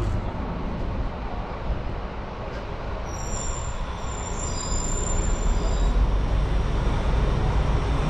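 Ride noise on the open top deck of a double-decker tour bus: engine rumble and street traffic, getting louder about five seconds in. A faint high-pitched whine comes in briefly a few seconds in.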